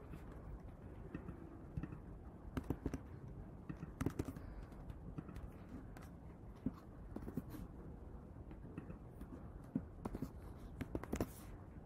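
Computer keyboard being typed on in several short bursts of faint keystroke clicks, with pauses between them.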